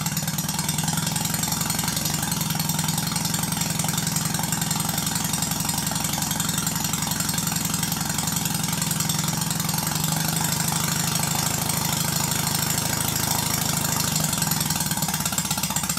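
Stuart Sirius single-acting high-speed model steam engine running on compressed air, a steady rapid mechanical beat. This engine is in like-new condition with perfect valve timing and no appreciable wear.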